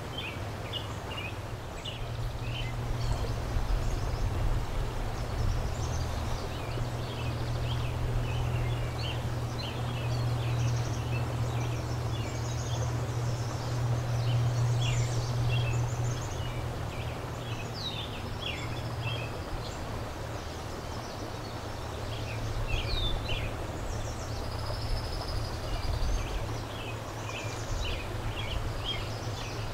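River water flowing with a steady rush, with songbirds chirping and whistling short calls throughout. Under it runs a low steady rumble, loudest through the first half.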